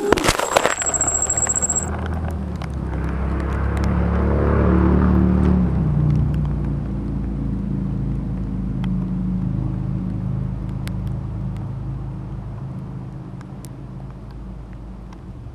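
An FPV quadcopter crashes with a short clatter of impacts in the first second, and its motor whine cuts off. A low, steady rumble then swells and slowly fades.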